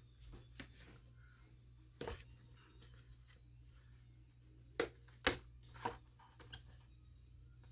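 A few faint, sharp clicks and taps of hands and small tools working inside an opened MacBook case, over a steady low hum.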